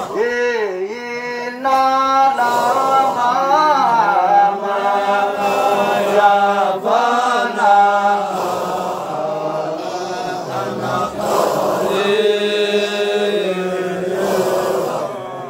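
Men chanting a Qadiriyya Sufi dhikr: a lead male voice sung into a handheld microphone, its melody winding up and down and holding long notes, with other men chanting along.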